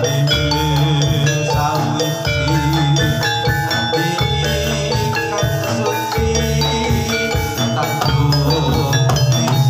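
Live Javanese gamelan music for a jathilan horse dance: bronze metallophones ring out a busy, rhythmic pattern of notes over a steady low pulse.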